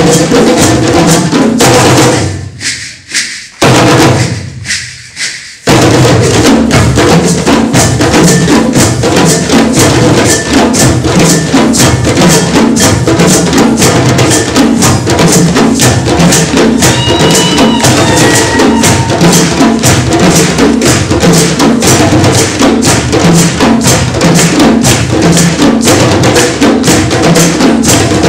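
West African djembe and dunun drum ensemble playing a dense, driving rhythm. About two seconds in the drums stop twice for a moment, with one loud stroke between the pauses, then the full ensemble comes back in.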